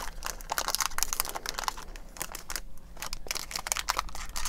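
Foil wrapper of a baseball card pack crinkling and crackling as it is pulled open by hand, with a short lull about two and a half seconds in.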